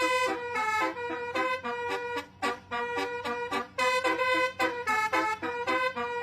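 Multi-tone musical bus horn of the basuri 'telolet' kind playing a quick melody of short, reedy notes.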